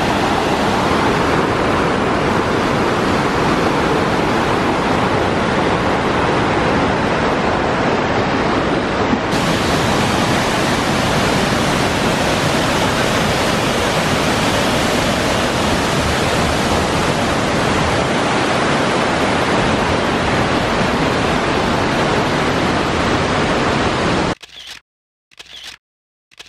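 Upper Mesa Falls, a large waterfall, rushing: a loud, steady roar of falling water that shifts slightly in tone about nine seconds in and cuts off abruptly near the end.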